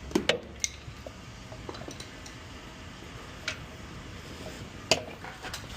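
A few sharp clicks and knocks, two close together just after the start and a loud one near the end, over a low steady hum.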